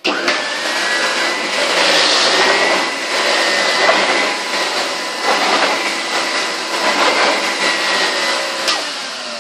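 Numatic Henry vacuum cleaner with a powered turbo brush head, switched on suddenly, its motor whine rising briefly as it spins up, then running while the head is pushed back and forth over carpet. The sound swells and dips with each stroke. Near the end there is a click, and the whine stops.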